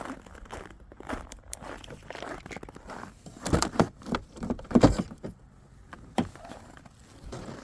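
Footsteps crunching in snow, with scattered clicks and a few louder knocks near the middle.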